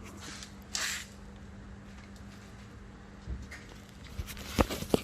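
Hands working the window switch assembly out of a car door panel: a short scraping rustle about a second in, then a few sharp plastic clicks and knocks near the end, the loudest just before it ends.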